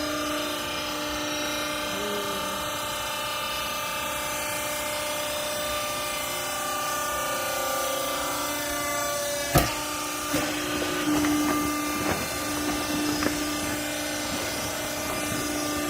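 Hydraulic clothes baler's power unit running with a steady hum. A little over halfway through there is one sharp knock, followed by several lighter knocks and clunks.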